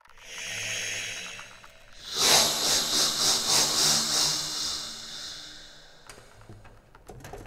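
Contrabass flute air sounds with electronics: a breathy hiss swells and fades. About two seconds in, a louder rush of air pulses about three times a second over a faint low tone, then dies away over the last few seconds.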